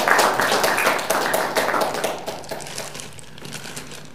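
Audience applauding at the end of a talk, the clapping thinning out and dying away over the last second or two.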